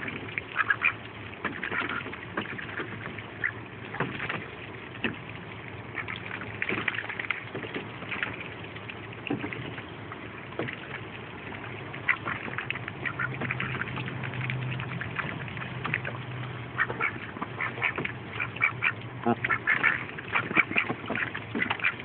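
Pekin ducks feeding with their bills in shallow water: a busy patter of quick wet clicks and snaps from dabbling bills, with soft quacks now and then. The clicks come thickest near the end.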